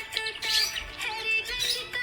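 Budgerigar chirping in quick, rapid notes over background music.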